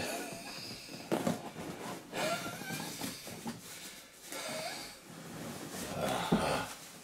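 Plastic wrapping rustling and squeaking as a wrapped figurine is worked out of a snug box, with a person's heavy breathing mixed in.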